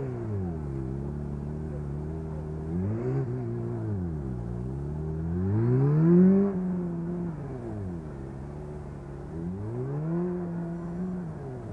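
Honda CBR600RR inline-four engine revving up and falling back repeatedly in short throttle bursts as the motorcycle turns through a cone course. The pitch climbs from about three seconds in to a loudest peak about six seconds in as the bike passes close, drops, then rises again near the end.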